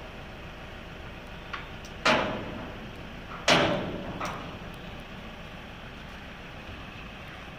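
Metal clanks from the steel rear gate and latch fittings of a cattle-catcher truck body being worked by hand: two loud clanks with ringing tails about a second and a half apart, with lighter clicks before and after.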